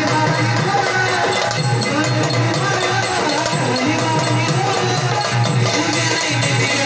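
Indian folk music with a dholki drum keeping a steady rhythm under a wavering melody line.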